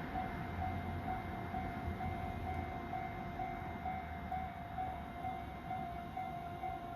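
Japanese railway level-crossing warning bell ringing, a repeated electronic clang about twice a second, over a low rumble that fades about halfway through.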